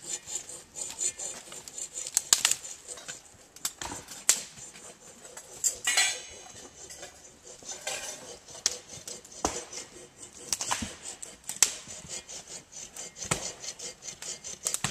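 Dry dead branches snapping and knocking together as firewood is broken up and stacked: irregular sharp cracks about every second or two, with rustling in between.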